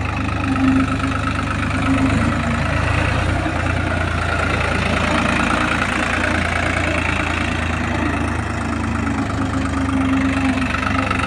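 New Holland 3630 Super Plus tractor's three-cylinder diesel engine running steadily as the tractor drives in first gear.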